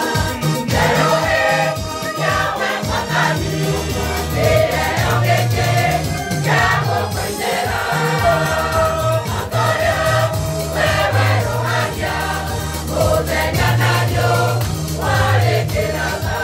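Choir singing a lively gospel song in several voices, backed by a steady bass line and a regular beat.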